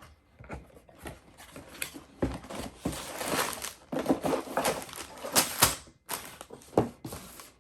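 A LEGO set's cardboard box being opened and unpacked by hand: irregular clicks, scrapes and rustling as the flaps are torn open and the plastic bags of pieces are handled.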